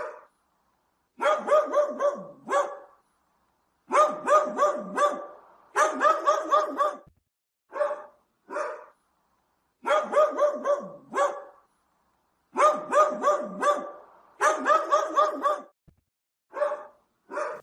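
Dog barking in quick runs of four or five barks, with a few single barks between the runs.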